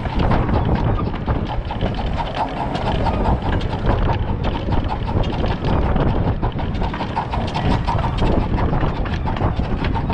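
A 15-inch gauge miniature steam train (a 1920 Barnes-built 4-4-2 locomotive) running along its track, heard low at the front buffer: a busy, even clatter of wheels on the rails.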